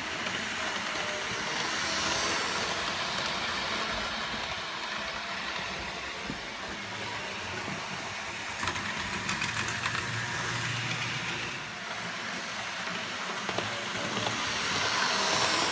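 Model trains running on a DC layout, a model TGV and a small tank engine: the whirr of their small electric motors and wheels rolling on the track. It gets louder about two seconds in and again near the end as a train passes close, with a few light clicks in between.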